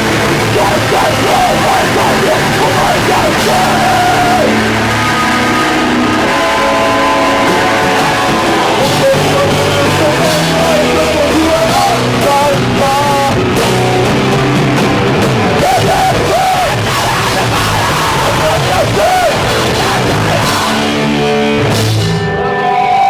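Live hardcore punk band playing loud: distorted electric guitars, bass and drums, with yelled vocals. Near the end the cymbal wash drops away, leaving held guitar notes ringing.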